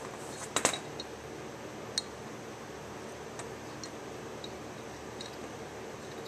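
Small metal clicks and ticks as a new brass needle valve seat is turned by hand into the top half of an International 460 tractor carburetor. A cluster of sharp clicks comes about half a second in and a single click at about two seconds, then faint scattered ticks over a steady room hum.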